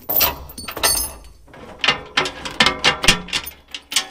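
Steel load chain being unfastened on a steel flatbed trailer: irregular metallic clanks and rattles of the chain links against the trailer rail.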